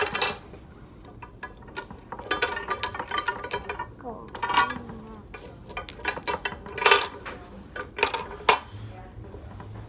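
Beads of a toddler's wire bead-maze toy clacking as they are pushed along the wires and knock together, in scattered sharp knocks with short rattles between.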